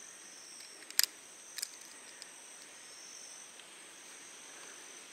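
Insects droning steadily in a high, even two-note chorus, with two sharp clicks near the start, the first about a second in and the louder.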